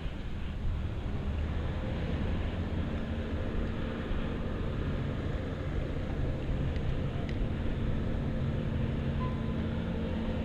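A steady engine drone with a low hum that holds evenly, heard over a rumble of wind and water.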